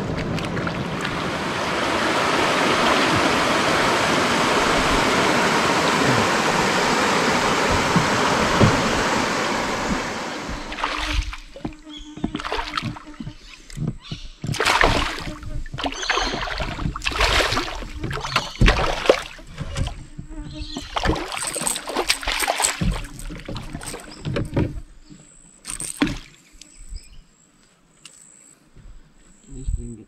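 Steady rushing noise for about the first ten seconds. Then come irregular splashes and knocks as a hooked fish thrashes at the surface beside a canoe and is brought in.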